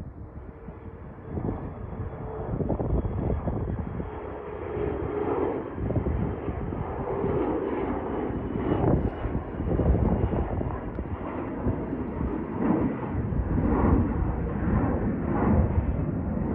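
Jet engine noise from a climbing Mitsubishi CRJ-700's two rear-mounted GE CF34-8C turbofans, heard from the ground. The noise grows louder over the first few seconds, then holds steady with a wavering, uneven level.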